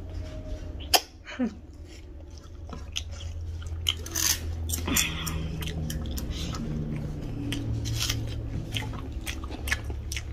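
Close-miked eating by hand: fingers squishing and mixing rice with chicken curry on a steel plate, with wet chewing, lip smacks and crackling clicks over a low steady hum. There are a couple of short falling squeaks in the first second and a half.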